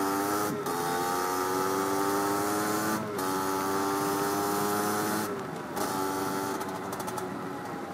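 Two-stroke Derbi Senda with an 80 cc top-end kit under way, its engine note climbing slowly and broken briefly about half a second, three seconds and five seconds in, as at gear changes. After the last break it runs a little quieter.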